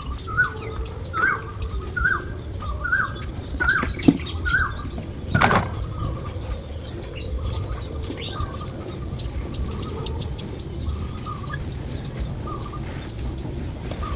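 Several birds calling and chirping: one repeats a short note about once a second for the first few seconds while higher chirps come and go over it. A sharp sound stands out about five seconds in, over a steady low rumble.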